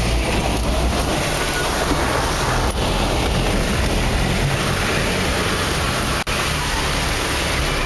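Truck engine running with a steady wash of water noise as it drives through a flooded trail, heard from inside the cab. The sound cuts out for an instant about six seconds in.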